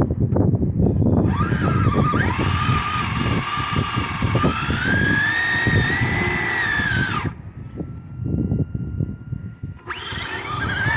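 Electric motor of a Traxxas Slash 2wd RC drag truck whining as it accelerates on a pass, the pitch climbing steadily over a rough rumble of tyres and wind, then cutting off abruptly. A fainter steady whine follows, and near the end the motor winds up again on another run.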